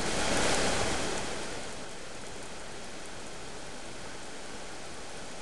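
Steady rushing noise of rain and the flooded, fast-running Swatara Creek. It swells louder for the first second or so, then settles to an even hiss.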